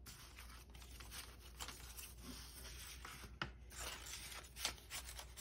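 Faint rustling of paper dollar bills being picked up and handled, with a few light clicks and taps.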